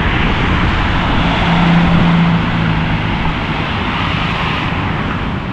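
Street traffic noise with a vehicle engine passing close by, its hum loudest about two seconds in and then fading.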